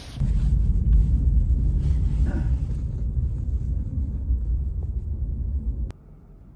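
Steady low rumble of a moving car heard from inside the cabin. It cuts off suddenly near the end, leaving a much quieter background.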